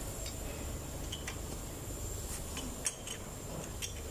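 A handful of light metallic clicks and taps, about five spread over a few seconds, from small metal engine parts and hand tools, over a steady low hum.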